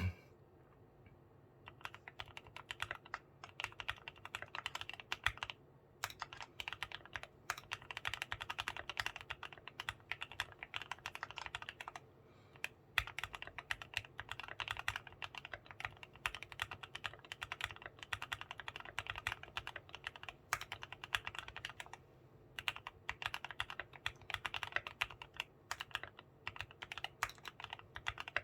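Keychron Q1 Knob aluminium mechanical keyboard with self-lubricated Gateron black linear switches being typed on quickly, in long runs of keystrokes broken by a few short pauses.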